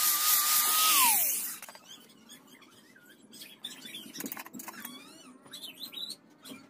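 Hand-held mini rotary grinder running at a high steady whine, switched off about a second in, its pitch falling as it spins down. Then faint clicks and high wavering squeaks.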